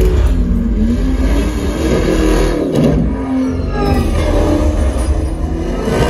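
A film's car-race soundtrack played through a Klipsch 5.1 home-theatre speaker system with subwoofer and picked up in the room. Car engines rev and glide past over heavy bass, which drops out briefly about three seconds in.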